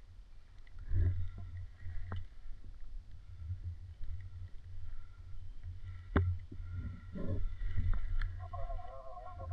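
Low, steady rumbling with a few sharp clicks or snaps, about one, two, six and eight seconds in, and a brief steady tone near the end.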